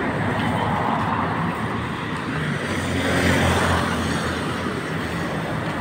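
Steady road traffic noise with a low engine hum, swelling as a vehicle goes by about three seconds in.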